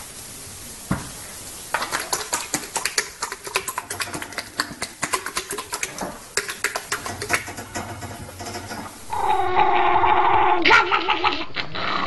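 A horse flapping and smacking its lips, a fast, uneven run of clicks and slaps. Near the end a dog gives a long, held whine that wavers slightly in pitch.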